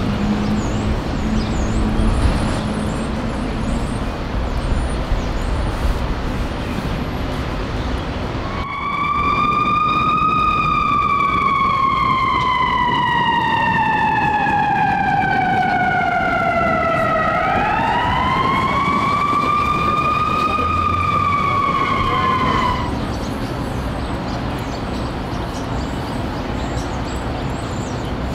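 Busy city street traffic noise. About nine seconds in, an emergency vehicle's wail siren cuts in, gliding slowly down in pitch, then rising and falling once more before stopping abruptly about 23 seconds in.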